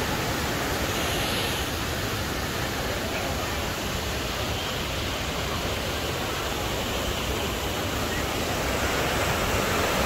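Monsoon-swollen river water rushing steadily over rocky rapids.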